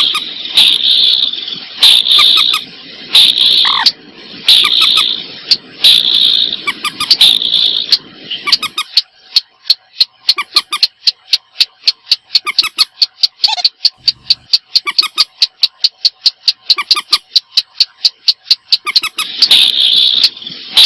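Recorded calls of rice-field birds, common moorhen (mandar batu) and sintar sawah, played as a luring call. A harsh call repeats about every second and a half, then gives way to a fast run of short clicking notes, about five a second, before the harsh calls come back near the end.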